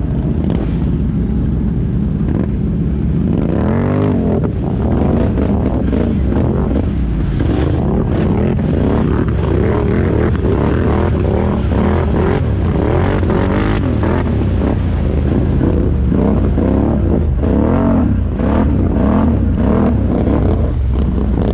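ATV engine running hard on the trail, its pitch rising and falling again and again as the throttle is worked.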